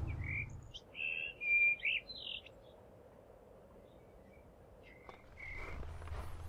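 Bird chirping: several short, high chirps over the first two and a half seconds, then near silence, with a faint low outdoor hiss coming in near the end.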